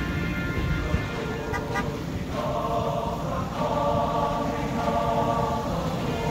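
Choir singing with held notes, swelling louder about two seconds in, over a low rumble.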